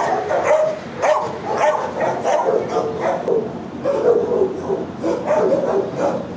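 Several shelter dogs barking over one another in a kennel block, with drawn-out calls mixed in, a steady racket without pause.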